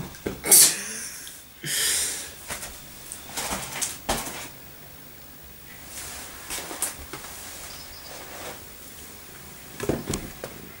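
Crinkly rustling of an inflated goon bag, a foil wine-cask bladder, being handled, in two louder bursts in the first couple of seconds, then lighter scattered rustles and knocks with a thump near the end.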